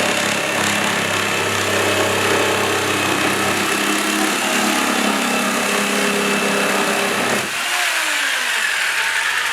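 GALAX PRO jigsaw running steadily at speed, then switched off about 7.5 s in, its motor whining down in pitch as it coasts to a stop.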